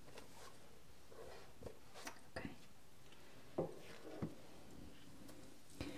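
Soft, scattered clicks and rustles close to a pair of binaural microphones as a person moves around them, with the sharpest click about three and a half seconds in.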